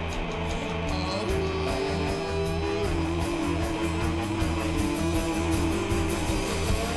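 Rock music with guitars and drums, an instrumental passage with a long held lead note that steps up and then back down.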